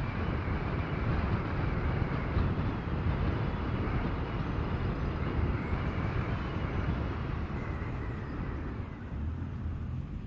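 Steady rushing noise of wind and road from travelling at speed along a paved road, with low, uneven gusts of wind on the microphone.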